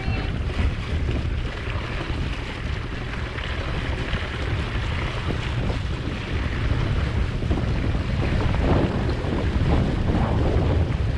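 Wind buffeting the microphone over water rushing and splashing along the hull of an Impulse 26 sailboat under sail.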